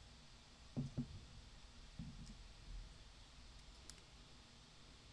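Faint clicks and soft knocks of small lock parts being handled as pin stacks are taken out of a Master Lock 410 LOTO padlock's core: two dull knocks about a second in, another just after two seconds, and a single sharp click near four seconds.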